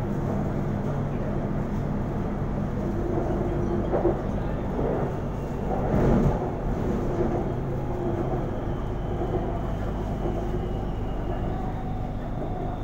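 Inside an elevated BTS Skytrain car in motion: a steady rumble of the train running along the track, with a constant motor hum and a brief louder swell about six seconds in.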